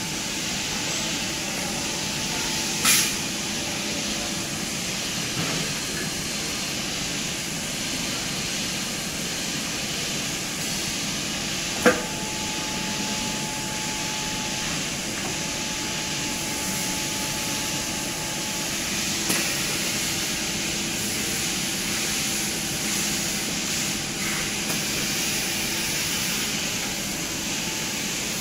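Steady factory-floor hiss with a faint hum, broken by a few sharp metallic knocks, the loudest about twelve seconds in.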